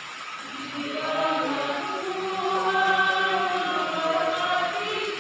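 Liturgical chant in church: a woman at the lectern sings long held notes, and the singing grows fuller and louder from about a second in.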